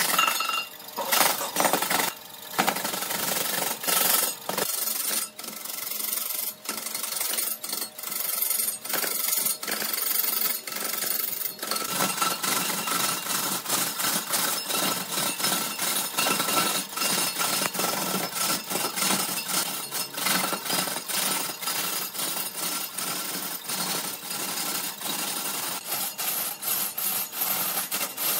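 A turning tool cutting red incense wood spinning on a large wood lathe: a continuous scraping hiss full of quick knocks. It becomes more even partway through.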